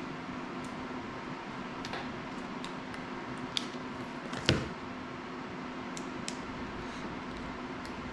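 Small clicks and taps of hands handling drone parts and tools on a workbench, with one louder knock about four and a half seconds in, over a steady hum.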